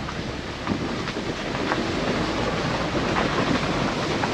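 A car driving slowly over a rough, wet dirt-and-gravel track, heard from inside the cabin: a steady rumble of tyres with many small clicks and rattles, getting louder about a second in.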